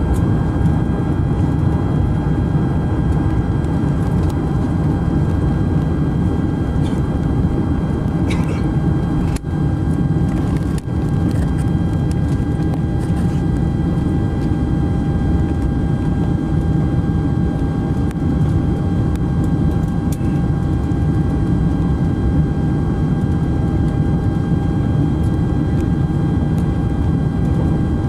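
Steady cabin noise of a Boeing 747SP on approach with flaps extended: the engines and the airflow over the wing make an even low rumble, with a few faint steady whines above it. The sound drops out briefly twice about ten seconds in, as worn analogue tape does.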